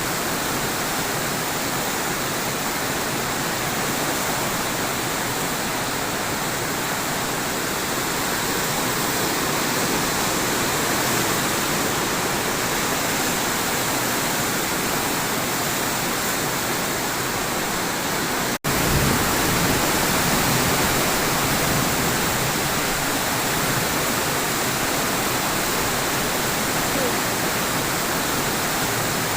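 Heavy rain making a steady rushing hiss, with a sudden brief dropout about two-thirds through, after which there is a little more low rumble.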